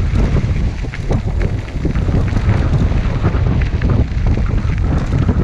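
Wind buffeting the GoPro microphone while a recumbent trike rolls along a dirt trail, with scattered small clicks and rattles from the tyres and frame on the gravel.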